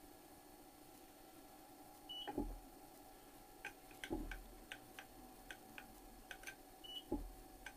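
Two short electronic beeps, about two seconds in and again near the end, among a run of light clicks and three dull thumps as the milling machine's controls and table are set up.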